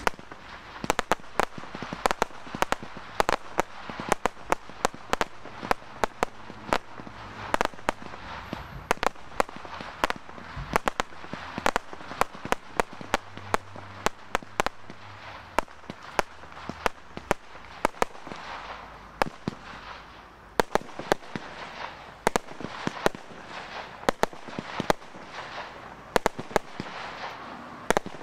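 Daytime fireworks going off in quick succession: sharp bangs and pops, often several a second and irregular, over a continuous crackling hiss.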